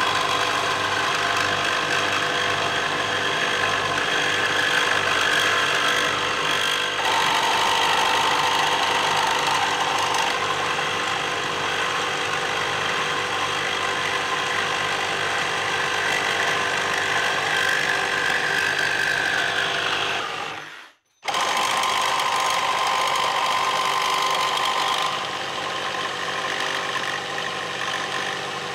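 One-handed cordless reciprocating saws running steadily as their 18-teeth-per-inch metal blades cut through aluminum angle. The sound drops out for a moment about three quarters of the way through, then runs on a little quieter near the end.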